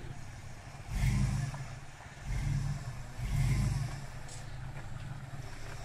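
Lifted 4x4 pickup's engine under a steady low rumble, revved up in three short bursts, about a second in, at two and a half seconds and again just after three seconds, as the truck crawls up a rocky, muddy bank.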